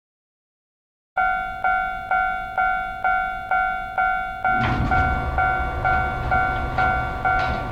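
Japanese railway crossing bell ringing 'kan-kan' at about two strokes a second, starting a little over a second in after a brief silence. From about four and a half seconds in, a passing train's rumble runs under the bell.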